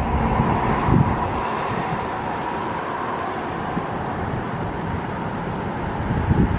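Steady outdoor background noise of road traffic, with a faint steady hum and low wind rumbles on the microphone about a second in and near the end.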